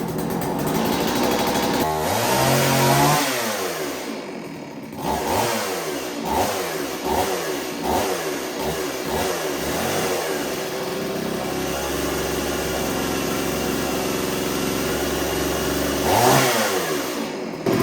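STIHL Wood Boss 024 AV two-stroke chainsaw engine running. It is revved up once, then blipped about six times in quick succession, settles to a steady idle, and is revved again near the end. It sounds halfway decent: a saw that had been flooded, now running.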